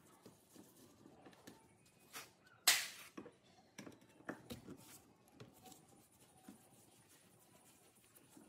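Light clicks and knocks of objects being handled, with one louder, short noisy sound about two and a half seconds in and a few smaller knocks soon after.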